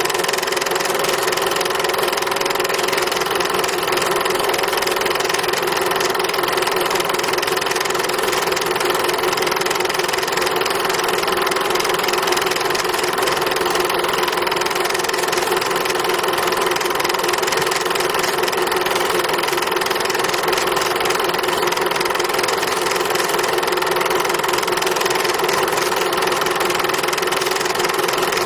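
A machine running at a steady, unchanging pace, with a strong mid-pitched hum.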